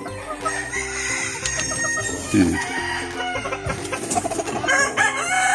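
Chickens clucking, with a rooster crowing near the end, over background music with a steady low melody.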